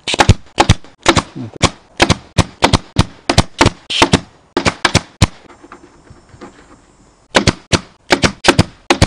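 Upholstery staple gun firing staples through vinyl into the console's wooden frame. A quick run of sharp shots comes about three or four a second, then a pause of about two seconds, then another quick run of shots near the end.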